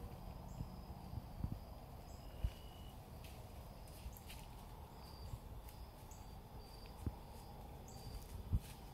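Quiet woodland ambience: faint, short high chirps repeating every second or so, with occasional soft low thumps.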